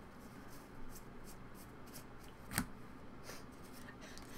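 Faint handling of Pokémon trading cards: soft rustles and light taps as cards are slid and flipped, with one sharper click about two and a half seconds in.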